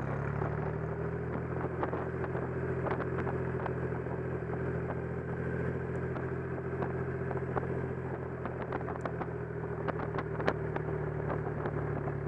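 Motorcycle engine running at a steady cruising speed while riding down the road, with wind noise and many short clicks and ticks over it.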